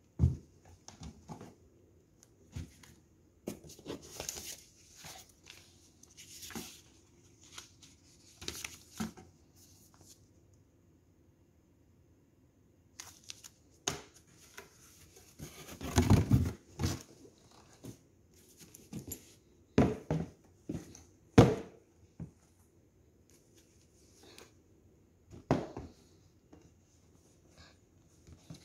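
Cardboard box and paper inserts being handled, rustling and crinkling in short irregular bursts, with a few sharp knocks as the leather safety boots and box are moved about.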